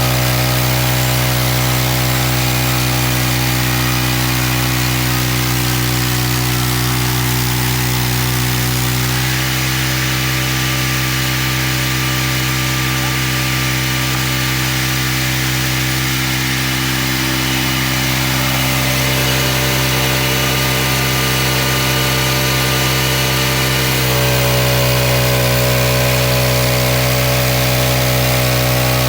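Engine of a homemade band sawmill running steadily. About nine seconds in its pitch drops a little under load and a hiss of the blade cutting through cedar joins it. Near the end it eases back to its lighter, unloaded running.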